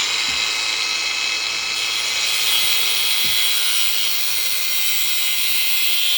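Grinder with a cut-off wheel running steadily at high pitch, cutting through a 1/4-inch solution hose to length.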